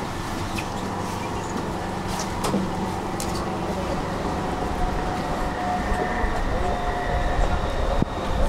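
Tram standing at a stop, its electrical equipment giving a steady hum with a few held whining tones, with a few sharp clicks and knocks. A low rumble builds near the end.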